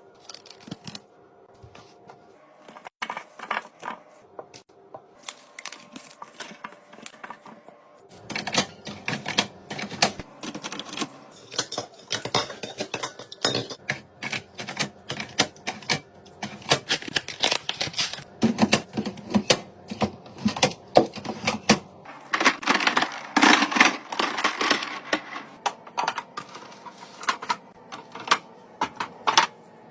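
Many quick clicks, taps and clatters of food and drink containers being handled and set into a refrigerator during restocking; sparse at first, then a dense run of clatter from about eight seconds in.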